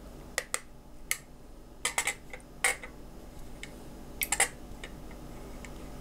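Sharp plastic clicks and taps as a handheld TDS meter is handled and gripped: about eight irregular clicks, with a quick run of three about four seconds in.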